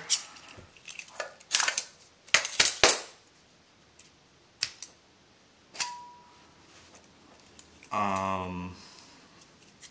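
Metal parts of a lightsaber chassis being handled and taken apart: a series of sharp clicks and clinks, loudest about two to three seconds in, one followed by a brief ringing tone. A short low hum comes near the end.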